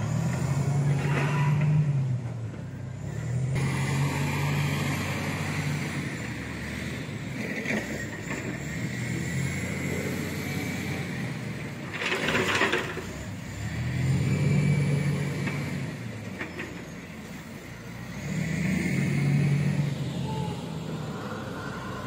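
Diesel engine of a heavy wheel loader with a log grapple, revving up and down repeatedly as it works. There is a short hiss about halfway through.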